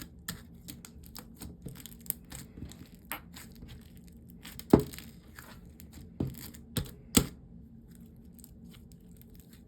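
Sticky slime with crunchy add-ins being stretched and squished by hand: a run of small crackles and clicks, with a few louder pops around the middle, the loudest about halfway through.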